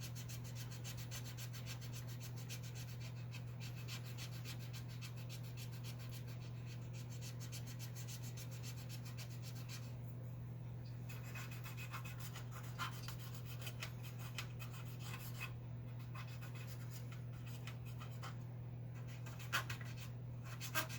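Cotton swab scrubbing metal polish onto tarnished metal pins: a continuous run of quick rubbing strokes over a steady low hum, with a couple of sharper clicks near the end.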